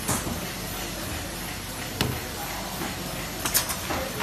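Paper box forming machine running with a steady mechanical din, with sharp clacks about two seconds in and a quick double clack near the end.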